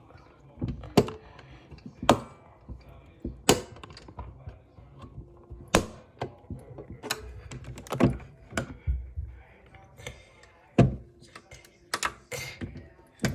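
Irregular sharp clicks and knocks, roughly one every second, some with a dull thud, like hard objects being handled and tapped together.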